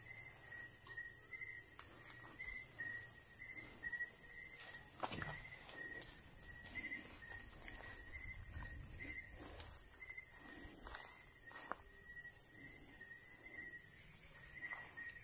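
Night insect chorus: crickets and other insects trilling steadily and high-pitched, with a lower chirp repeating about twice a second. Faint scattered rustles and footfalls of someone walking through grass sit under it.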